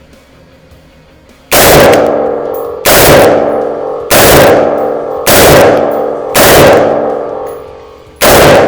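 Newly built semi-automatic rifle being test-fired six times, shots about a second apart with a slightly longer pause before the last, each ringing out and decaying. The action cycles each round, firing the magazine empty.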